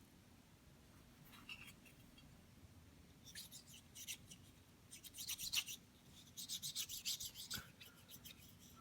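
Cotton swab scrubbing inside a pistol slide's firing-pin bore, a faint scratchy rubbing in quick back-and-forth strokes that thickens from about three seconds in. There is a single light tap near the end.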